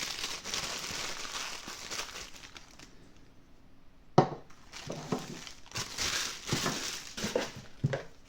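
Packaging being handled and crinkled, with a sharp knock about four seconds in and a few lighter knocks and rustles after it.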